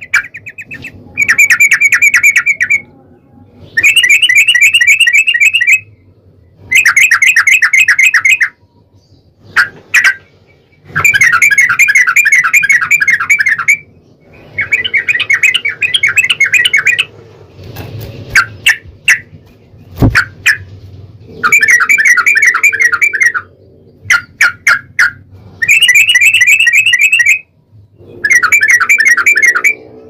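Yellow-vented bulbul song: loud, fast rippling phrases of rapid chattering notes, each lasting a second or two, repeated over and over with short single chirps between them. A brief low thump about twenty seconds in.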